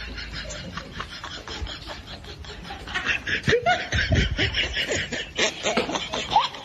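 People laughing in quick short bursts, starting about halfway in.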